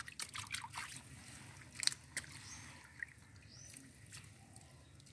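Small splashes, drips and trickles of water as hands move wet fish about on a net in shallow water, with a sharper splash about two seconds in.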